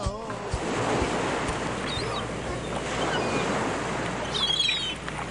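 Ocean waves and surf washing in swells, rising and easing, with a few faint bird cries over them. The singing breaks off just at the start.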